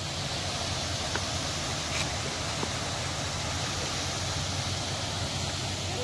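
Steady rushing of a stream flowing over rocks, an even hiss with a low rumble beneath it.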